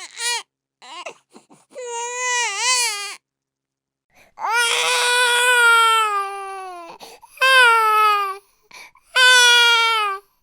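A baby crying: a run of about four high-pitched wails with short breaks between them. The longest lasts about two and a half seconds and sags slightly in pitch toward its end.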